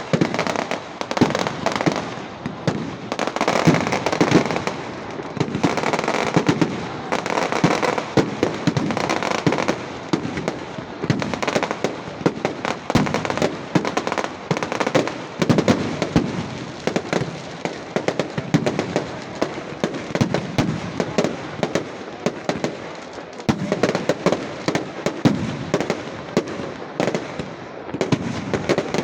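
Fireworks and firecrackers going off in a long, rapid, continuous string of sharp cracks and pops. The string swells and eases in waves.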